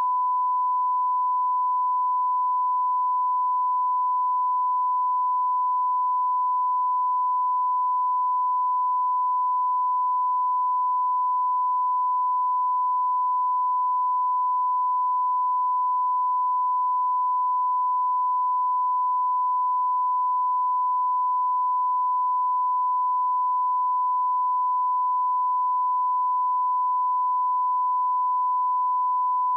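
A steady test tone: one pure, unchanging beep held at a single pitch. It is the reference line-up tone that accompanies colour bars.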